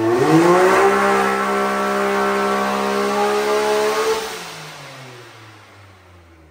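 Can-Am Maverick X3's turbocharged three-cylinder engine at full throttle on a chassis dyno, revs jumping up and then climbing steadily for about four seconds. The throttle then closes and the engine winds down and fades.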